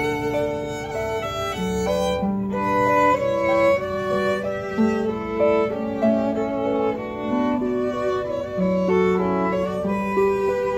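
Two violins and a harp playing together: a bowed violin melody with held notes over harp accompaniment.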